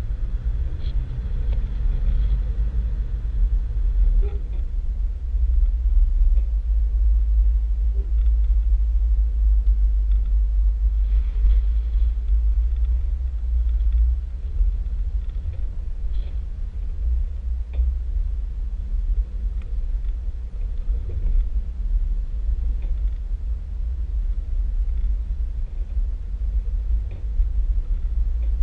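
Steady low rumble of a 4x4 driving on a sandy off-road track, heard from a hood-mounted camera, with wind buffeting the microphone over the engine and tyre noise.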